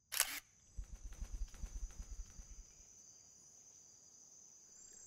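Faint cartoon nature ambience of chirping insects, a thin high steady chirr. A brief swish comes at the start, and a rapid low fluttering rumble runs through the first half.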